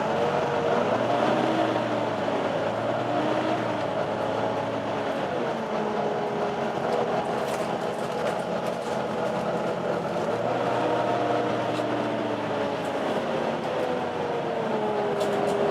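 Volvo B9TL double-decker bus under way, heard on board: a whine from the engine cooling fan (the 'hoover' sound) over the engine and road noise. The whine's pitch rises and falls with engine speed, climbing about a second in and again about ten seconds in, and sinking in between and near the end.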